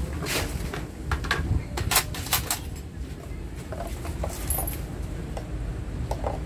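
A quick run of sharp clicks and knocks in the first few seconds, then a few fainter ones, as kitchen utensils, a lid and containers are handled on a metal tray, over a steady low background rumble.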